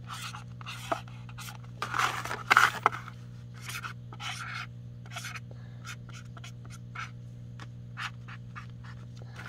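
Felt-tip marker drawing on a paper plate: short scratchy strokes. The longest and loudest come about two to three seconds in, followed by quicker little strokes.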